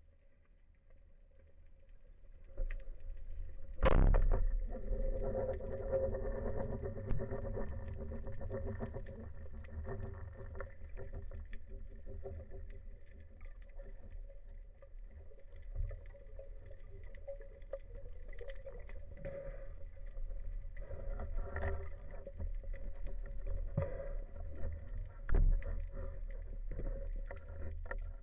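Band-powered speargun firing underwater: a sharp crack about four seconds in. A steady low rumble with a humming tone follows, and a second, smaller crack comes near the end.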